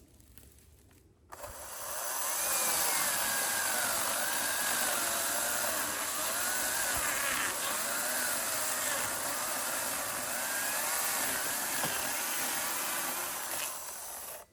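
Chainsaw running under load, its pitch wavering up and down as the engine speed changes through a cut. It starts abruptly about a second in and cuts off suddenly at the end.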